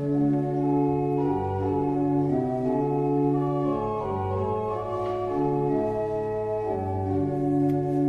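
Church organ music: slow, held chords that shift about once a second over a sustained bass line.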